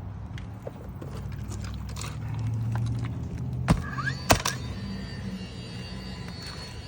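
Two sharp knocks about half a second apart, a little under four seconds in: nails being driven to fasten a trimmed replacement shingle into an old asphalt shingle roof, over a low steady rumble.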